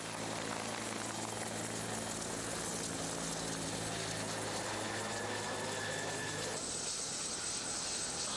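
Helicopter engine and rotor running with a steady hum. About two-thirds of the way in it cuts off sharply, leaving a thin, high, steady tone.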